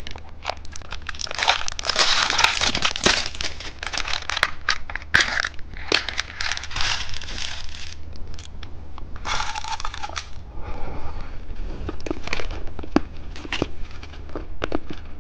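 Plastic candy packaging being crinkled and torn open by hand, in long rustling stretches with many sharp crackles and clicks.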